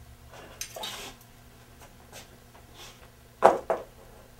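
A steel bicycle inner shift cable being handled after it is drawn out of the shifter: faint rubbing and scraping about a second in, then two sharp clicks about a quarter second apart, near the end.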